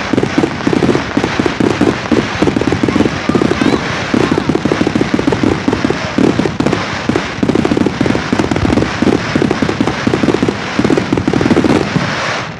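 Fireworks display: a dense, rapid barrage of bangs and crackles, many a second, that stops abruptly near the end.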